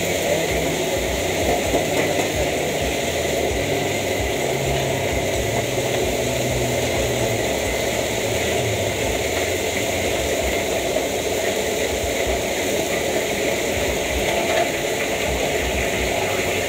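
Steady rush of a gas wok burner's flame running at full blast, with hot oil bubbling and sizzling in the wok as food deep-fries.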